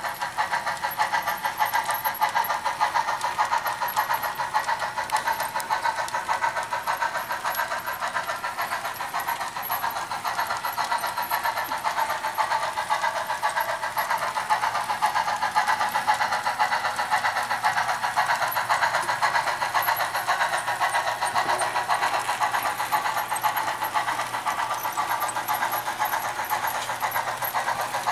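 HO-scale model train running along the track: a steady mechanical whir with fast, even clicking from the wheels and drive.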